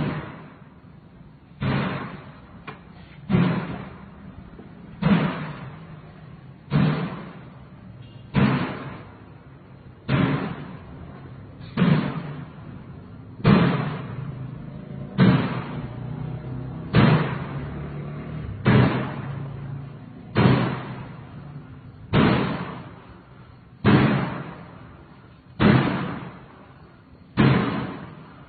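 Loud bangs in a steady, even rhythm, about one every 1.7 seconds, each hitting sharply and then echoing away for about a second. It is an unexplained, repeated knocking.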